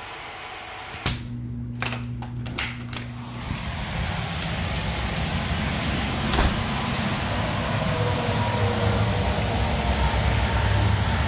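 A few clicks and knocks, then heavy torrential rain pouring down, a steady hiss that grows gradually louder, with a low steady hum underneath.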